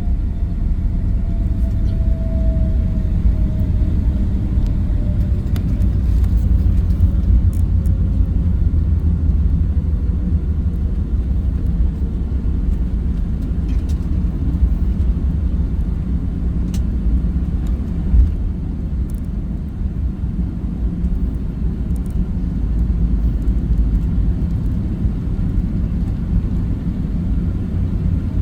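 Boeing 757-200 cabin noise: a steady, loud low rumble of the jet engines and airflow. A faint tone slides down in pitch over the first ten seconds, and there is one brief thump about eighteen seconds in.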